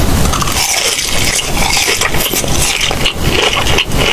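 Close-miked chewing and crunching on a Wingstop citrus mojo chicken wing: a dense run of small crackles and clicks.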